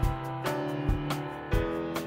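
Instrumental background music with held notes and a steady beat.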